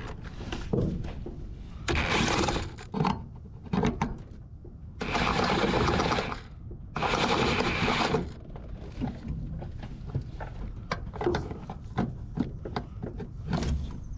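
A small motorised tool running in three short bursts of about a second each, with scattered knocks and clicks between them.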